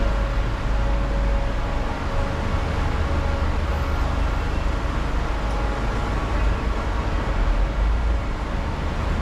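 Steady low vehicle rumble with a faint hum, unbroken and even in level.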